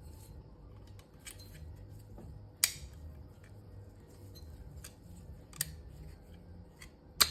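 Sharp metallic clicks and taps, three of them loud, as a server CPU heatsink is set down and seated onto the processor, over a low steady hum.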